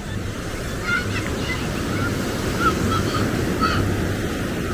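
Beach ambience: a steady rush of surf and wind on the microphone, with scattered short distant calls.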